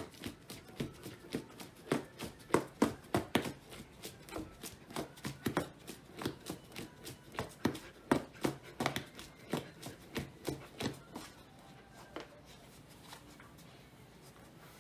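Old English Sheepdog puppy scrabbling at a cardboard box and the floor beside it: a string of sharp scratches and scrapes, a few a second, that die down about twelve seconds in.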